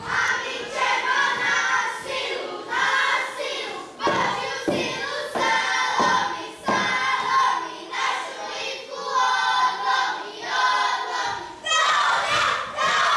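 A group of children singing a folk song together in phrases, with a few thuds of feet stamping on the wooden stage floor a few seconds in.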